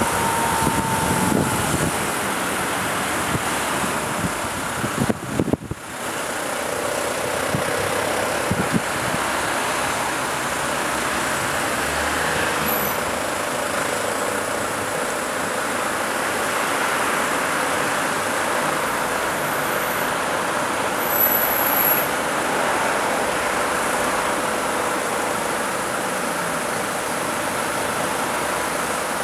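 Steady road-traffic noise of vehicles moving slowly in a city street, an even rush of engine and tyre noise with no clear single event.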